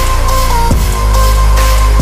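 Electronic background music with deep bass, held synth tones and a drum beat.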